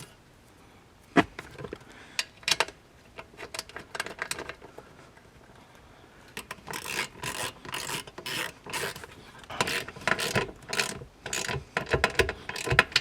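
A few separate clicks and knocks, then from about six and a half seconds a quick run of rasping ratchet strokes: a hand ratchet tightening bolts.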